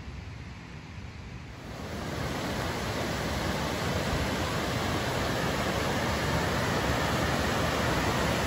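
Whitewater rapids rushing over boulders in a rocky creek: a steady, even rush of water that swells up about two seconds in, after a quieter low rumble, and then holds.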